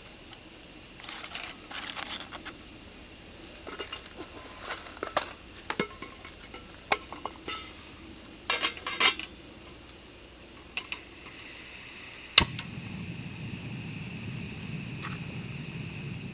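Metal cookware and utensils clinking and knocking in short, irregular bursts while food is prepared. About eleven seconds in, a steady hiss starts, with one sharp click soon after.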